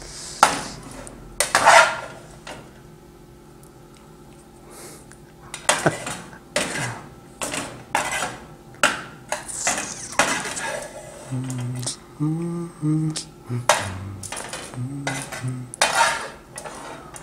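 Metal spoon scraping and knocking against a frying pan as scrambled eggs are scooped out of it into a bread roll. The sound comes as separate scrapes and clinks, a couple near the start, then about one or two a second through the second half.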